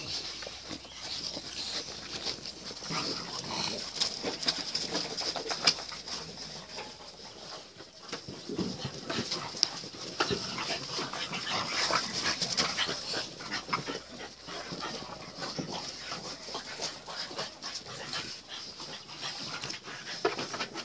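French bulldog puppies snuffling and giving small whimpers as they nose at the water of a plastic paddling pool, with irregular soft clicks and knocks throughout, over a steady high-pitched hiss in the background.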